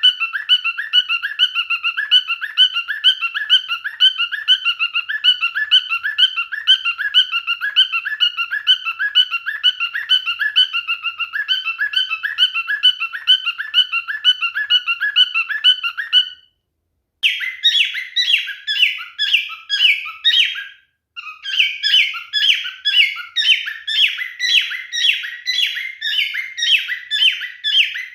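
Male cockatiel calling in a fast, even run of repeated chirping whistles, about three a second. The calling cuts off dead twice, for about a second each time: once about sixteen seconds in, and again about four seconds later, after which the notes come a little sharper.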